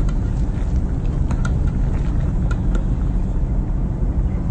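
Portable gas stove burner running under a pot of soup at the boil: a steady low rumble, with a few light clicks.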